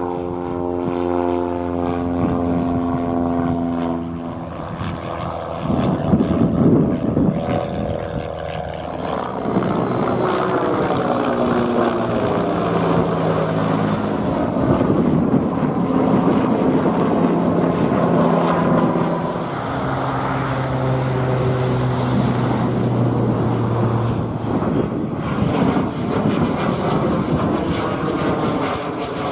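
Aircraft engines passing overhead in a run of cut-together clips. There is a single-engine propeller plane, a helicopter's rotor and a twin-engine business jet, whose engines give a falling high whine near the end.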